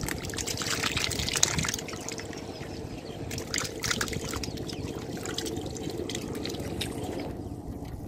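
Hands sloshing and squelching through shallow muddy water while feeling in the mud for fish: a steady run of small wet splashes and slaps, thinning out near the end.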